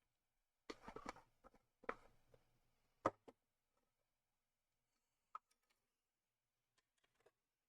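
Faint, scattered clicks and light knocks of laptop parts being handled and fitted back together during reassembly, with a small cluster about a second in and a sharp single click about three seconds in.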